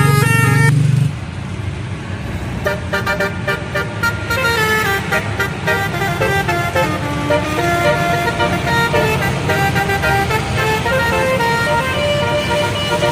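Bus telolet horn: a loud multi-tone horn chord cuts off about a second in, then the horn plays a quick melody of short stepping notes over the bus's running engine.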